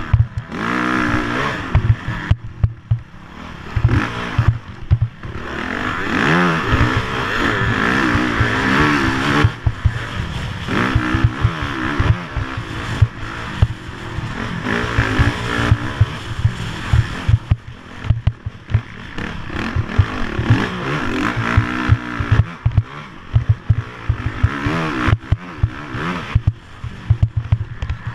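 Onboard sound of an off-road racing engine revving hard and dropping back over and over across a rutted dirt track. Frequent thumps and knocks from the bumps run through it.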